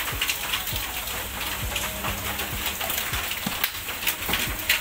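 Thin tempoyak sauce boiling hard in a wok around pieces of patin fish: a steady hiss with many small bubbles popping and spitting.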